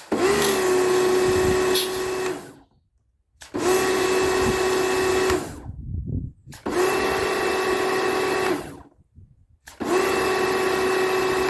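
Karcher electric pressure washer's motor and pump starting and running steadily for about two seconds at a time, then cutting out, four times over, as the trigger is pulled and released. It runs only while the trigger is held, the sign that the repair of its leak and constant running has worked.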